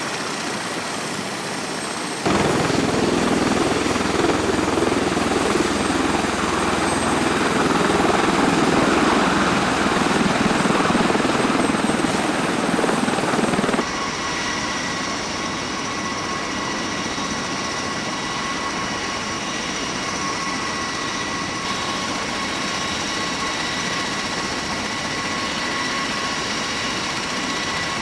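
Military helicopter turbine engines and rotor running steadily. About two seconds in the sound jumps louder and noisier, then about halfway through it drops back to steadier running with a high-pitched turbine whine.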